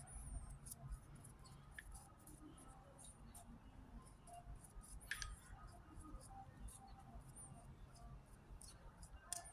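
Near silence: room tone with a faint low hum and a few faint scattered clicks.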